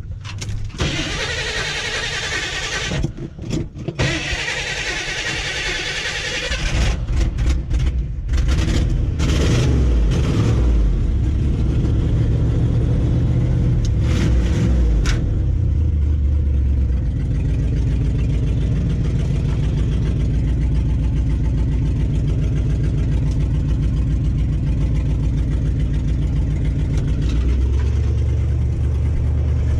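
2005 Ford Ranger's 4.0-litre V6 engine running as the truck is moved. A hissing noise fills the first few seconds. The engine grows louder about seven seconds in and then runs steadily, its note stepping up and down a couple of times.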